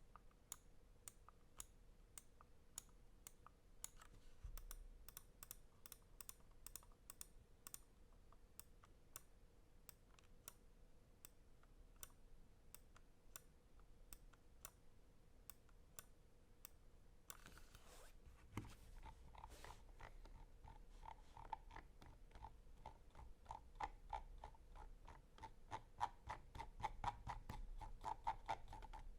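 Endorfy GEM Plus wireless mouse's button switches clicking at about two a second, with a faster run of clicks. This gives way to a brief rub, then the rapid ratcheting ticks of the scroll wheel's notched encoder as the wheel is rolled.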